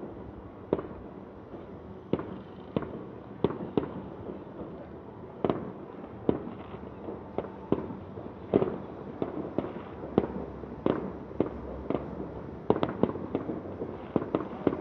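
Distant aerial fireworks shells bursting: an irregular series of sharp bangs, about one or two a second, each trailing off in a short echo.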